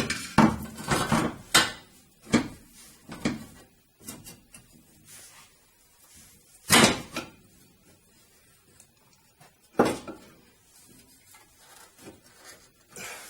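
Metal clanks and knocks from a car's rear strut and coil-spring assembly being worked up into place in the body: a quick run of knocks at first, then two sharper single knocks about seven and ten seconds in, with faint scraping between.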